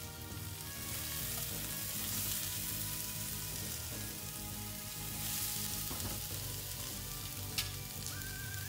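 Sliced peppers, onion and courgette sizzling steadily in hot oil in a frying pan as they are stirred with a silicone spatula, with a brief click near the end.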